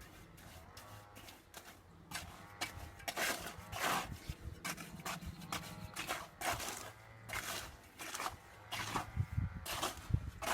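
Repeated short scraping or rasping strokes, irregular and several a second at times, with sheep bleating now and then in the background.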